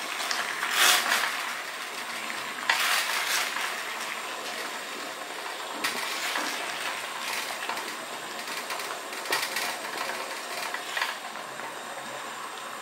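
Water boiling steadily in a glass pot, with a few sudden louder splashes as whole scored tomatoes are lowered into it to blanch.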